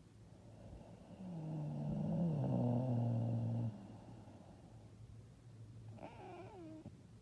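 A woman's loud snore: a low buzzing tone that falls in pitch over about two and a half seconds, then stops abruptly. A shorter, wavering, higher-pitched sound comes near the end.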